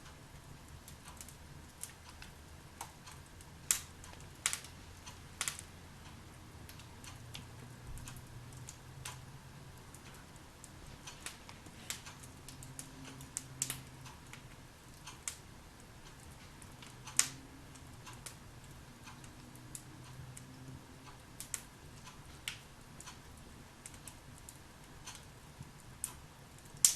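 Wood fire crackling in a fireplace: irregular sharp pops and snaps, a few much louder than the rest, over a faint low hum.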